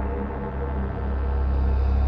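Eerie ambient music from the disc menu: a deep, steady low drone with sustained tones held above it.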